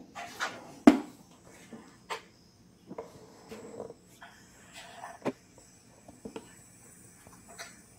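Hard plastic toys being handled: scattered light knocks and clicks, the sharpest about a second in and again a little after five seconds, with soft rustling between them.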